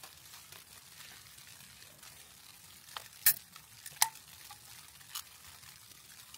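Aluminium drink can handled at its top: a few sharp metallic clicks and taps. The two loudest come about three and four seconds in, and the second rings briefly.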